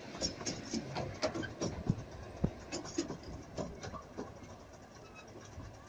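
Miniature steam railway carriages rolling away on the track, their wheels clicking irregularly over the rail joints with a low rumble underneath, the clicks growing fainter near the end as the train draws off.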